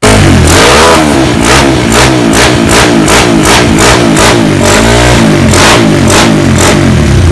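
Air-cooled single-cylinder four-stroke engine of a Kawasaki KLX dirt bike, fitted with a special camshaft, revved up and down in quick repeated throttle blips through an aftermarket exhaust.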